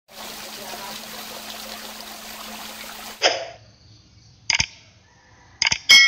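Water from a small concrete grotto waterfall spilling down its tiers into a pool, a steady splashing that cuts off about three seconds in. Then a few short sharp sound-effect hits from a subscribe-button animation, and a bell-like ding right at the end.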